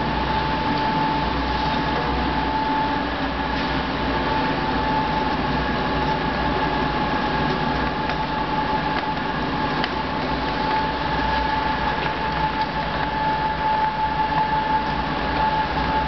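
Hosokawa Alpine Gear Pelletizer running steadily while its twin ring dies extrude pellets from fine powder: a constant mechanical hum with a steady high whine and a few faint clicks.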